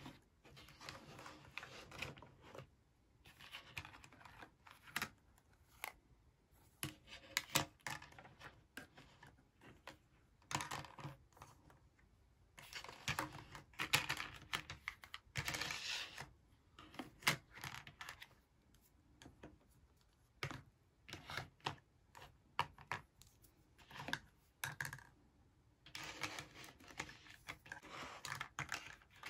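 Plastic toy tea cups, saucers and spoons of a Minnie Mouse tea set being picked up and set down: light clicks, taps and scrapes of hard plastic on plastic and on the table, in irregular clusters with brief pauses.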